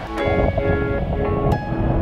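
Instrumental background music with held notes and a few light percussion hits.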